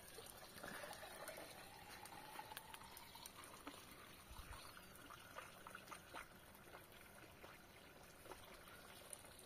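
Near silence: faint background hiss with a few soft clicks and a faint drawn-out tone.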